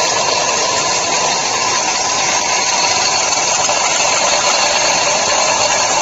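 Automatic can vacuum leak tester machine running with a steady, unbroken mechanical noise.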